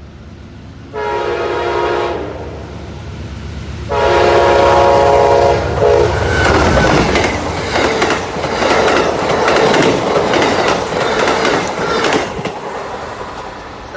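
Amtrak GE P42DC Genesis locomotive sounding its horn twice, a short blast about a second in and a longer one around four seconds in. The passenger train then passes close by: a loud rush and rumble with rapid clickety-clack of wheels over the rail joints, dropping off as the last car goes by near the end.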